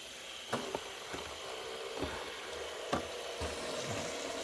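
Several fidget spinners spinning on their bearings, making a steady whirring hiss with a faint hum, broken by a few sharp clicks.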